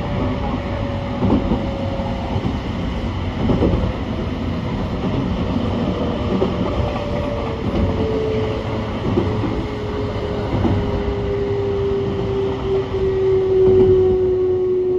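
Electric trains running on parallel tracks: a steady rail rumble with a few clacks over rail joints. An electric motor whine falls slowly in pitch and grows louder toward the end, as a train slows.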